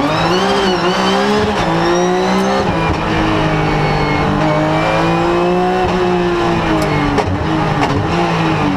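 Rally car engine heard from inside the cockpit at speed, revs rising and dropping with gear changes, with a faint high whine that follows the engine note.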